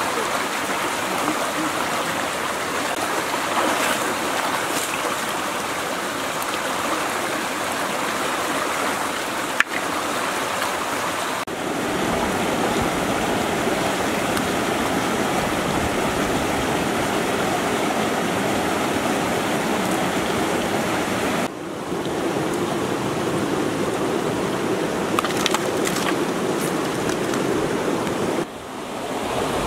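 Shallow stream water rushing steadily over rocks, with three short dips in the sound where the shots change.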